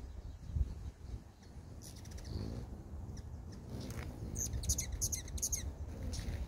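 Hummingbirds chattering in high, dry chip notes: a short run about two seconds in, then a longer, rapid burst of chips near the end, the kind of chatter one hummingbird makes while chasing another from a feeder.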